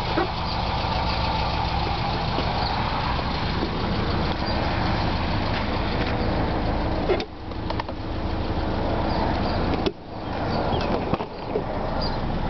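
2002 Subaru Forester's flat-four engine idling steadily. Partway through come two sharp clicks, a few seconds apart, as a rear door is opened.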